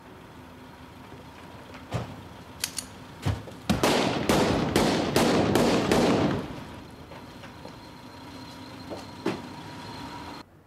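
A rapid string of handgun shots, about two or three a second for roughly two and a half seconds, each ringing out with echo. A few lighter knocks come before them.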